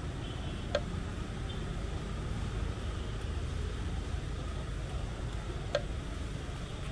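Steady low rumble of city street traffic, cars running in the lane alongside. Two short sharp clicks stand out, about five seconds apart.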